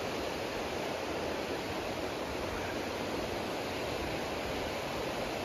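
Steady rush of flowing river water, an even noise with no breaks.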